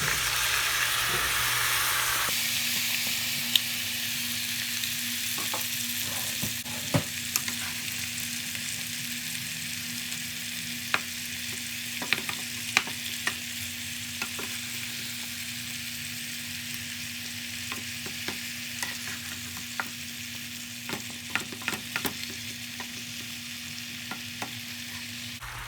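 Chicken and vegetables sizzling steadily as they fry in oil in a pan, with scattered clicks and scrapes of a utensil stirring against the pan.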